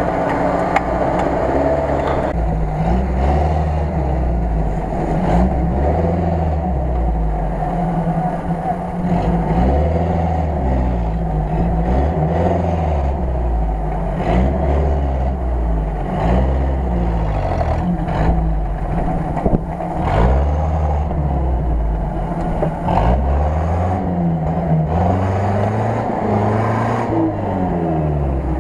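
Off-road 4x4's engine revving up and dropping back again and again, about every two seconds, as its tyres work through deep mud.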